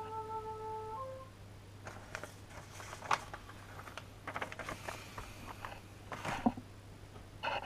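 Paper instruction sheet rustling and crinkling as it is handled and folded, with scattered light taps and plastic rustles from the bag of kit parts. A steady held tone stops about a second in.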